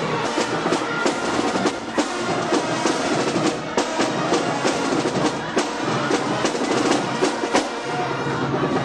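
Drum-led music: quick, many-per-second snare and bass drum hits.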